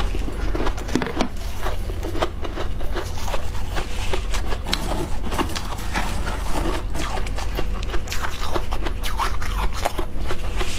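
Close-miked chewing and crunching of soft freezer frost: a dense, irregular run of crackly crunches over a steady low hum.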